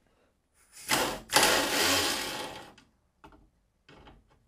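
Pneumatic air ratchet running on a nut of a fog-lamp bracket bolt: a short burst, then a longer run of about a second and a half, followed by two brief blips.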